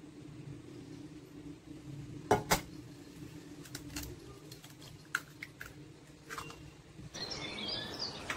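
An egg tapped twice against the rim of a glass bowl to crack it: two sharp clicks a quarter-second apart, followed by a few fainter clinks as the shell is opened over the bowl.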